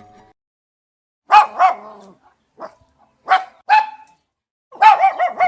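Small dog barking in short, high-pitched barks: after about a second of silence, two barks, a faint one, two more, then a quick run of barks near the end.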